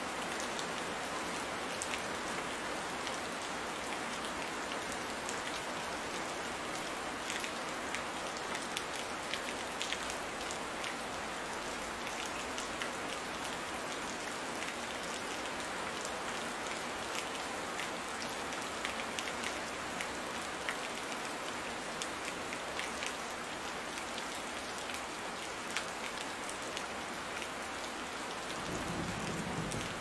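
Steady rain falling on garden foliage, with many individual drops heard striking close by. Near the end a low rumble of thunder begins to build.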